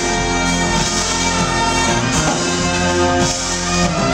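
Live smooth-jazz band playing, with electric guitar, bass guitar and drums over held notes.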